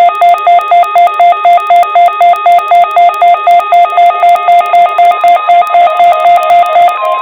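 NOAA Weather Radio alert signal: a loud electronic tone beeping about three and a half times a second, jumping between two pitches. Near the end it gives way to a steady single-pitch warning alarm tone.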